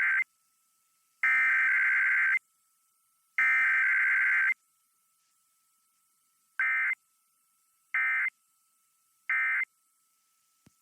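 Emergency Alert System SAME digital data tones: three header bursts of about a second each, the first already under way, followed a couple of seconds later by three short end-of-message bursts about 1.3 seconds apart. The header is repeated three times to mark the start of the alert, and the three short bursts close it out.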